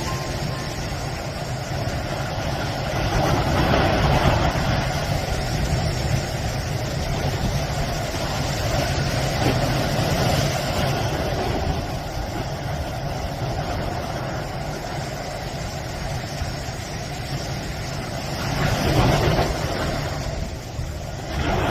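Sea surf washing onto the shore, a steady rushing that swells three times as waves break, over a low wind rumble.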